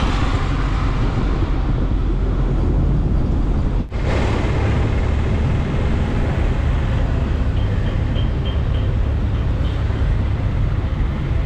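Engine and road noise of a moving vehicle heard from inside it, a steady heavy rumble with wind-like hiss, briefly dropping out about four seconds in.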